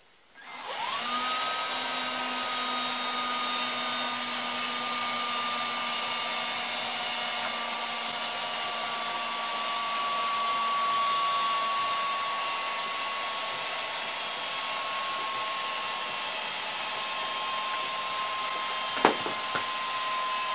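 Cordless drill, clamped to a bench and driving a tip-up spool through a deep-well socket, spins up about half a second in and runs steadily with a whine while fishing line winds onto the spool. Its pitch sinks slightly over the run, and two sharp clicks come near the end.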